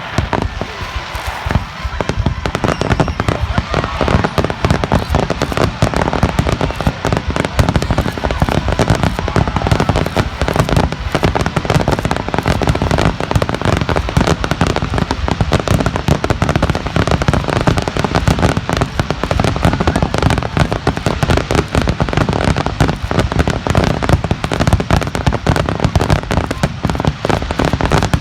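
Aerial fireworks bursting in a dense, continuous barrage: deep booms overlapping one another with crackling in between, getting louder about two seconds in.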